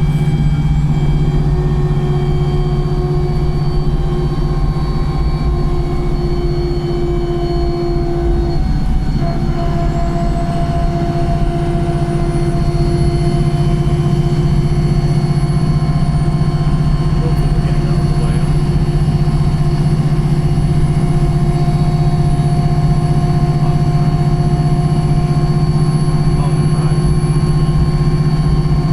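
Wright Pulsar single-decker bus heard on board while under way, its drivetrain running steadily with a loud whine from the gearbox and differential. A faint high whine climbs in pitch about ten seconds in.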